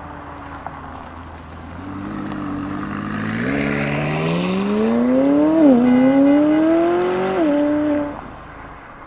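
A supercar's engine accelerating away: the note holds low and steady, then climbs in pitch, drops sharply at an upshift a little past halfway, climbs again and drops as the throttle lifts, fading near the end.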